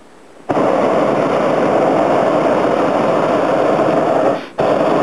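Hot air balloon's propane burner firing: a loud, steady rushing blast starts abruptly about half a second in, cuts out briefly near the end, then fires again.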